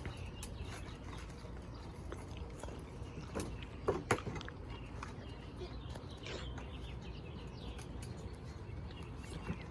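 Steady outdoor background noise with faint bird chirps, and two brief sharp knocks about four seconds in.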